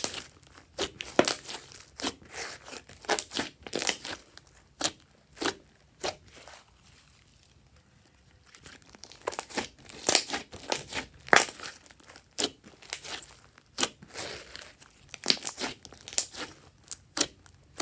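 Hands squeezing and kneading a large mass of glossy slime, making a rapid, irregular string of sticky pops and clicks, with a short quieter spell near the middle.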